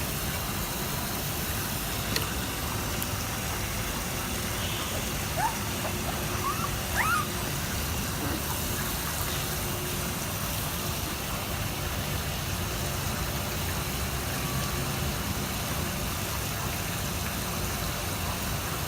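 Steady rush of running water, as for a puppy's bath, with a few short rising whimpers from a puppy about five to seven seconds in.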